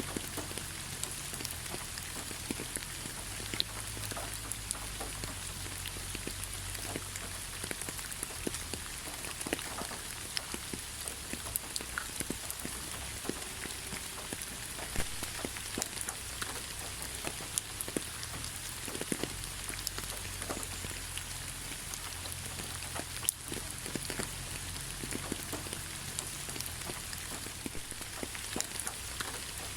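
Steady rain falling, with many separate drops clicking sharply through an even hiss and a low rumble underneath.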